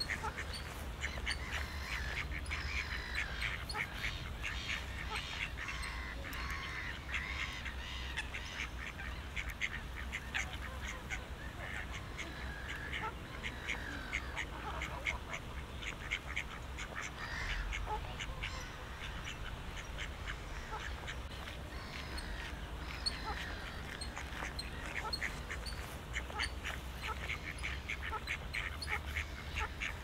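Ducks quacking on and off, with small birds chirping throughout, over a steady low rumble.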